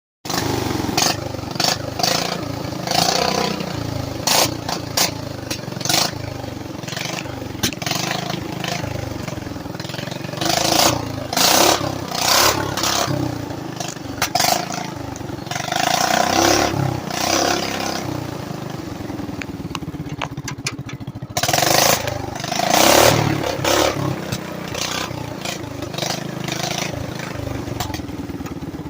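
Small engine running, its throttle worked by a length of baler twine in place of a throttle cable, with the engine speed swelling up and down several times. Loud knocks and clattering come over it.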